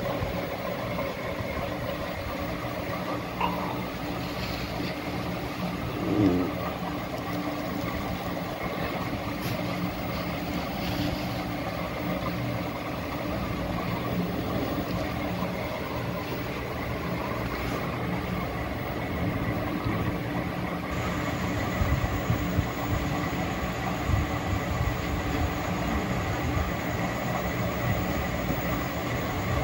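A steady mechanical hum with a low drone that does not change, and a brief louder knock about six seconds in.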